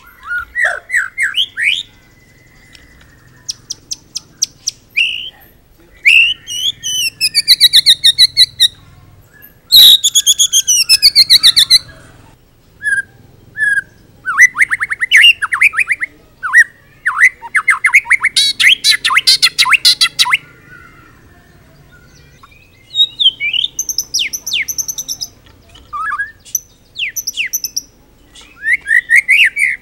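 White-rumped shama (murai batu) singing a loud, varied song in separate phrases. It has runs of short rising notes, sweeping whistles that fall in pitch, a long fast rattling trill around the middle, and high thin notes near the end. The song is packed with mimicked phrases (isian).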